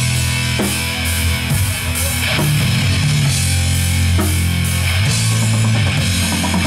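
Heavy metal band playing live and loud: distorted electric guitar and bass riffing over a drum kit with steady cymbal hits.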